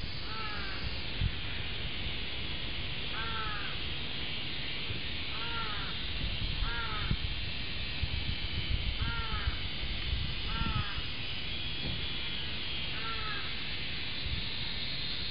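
A crow cawing repeatedly: about seven short, arched caws spaced one to three seconds apart, over a steady low rumble.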